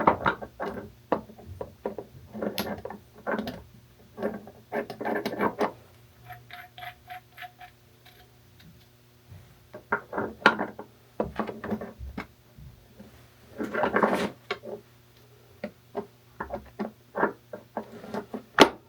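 Galvanized steel pipe fittings being handled and screwed together: scattered metal clicks, knocks and clinks. About a third of the way through comes a run of light, evenly spaced ticks, about three a second, as a threaded fitting is turned.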